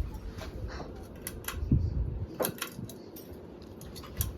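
Scattered light clicks and clinks of small hard objects, with a dull knock about a second and a half in.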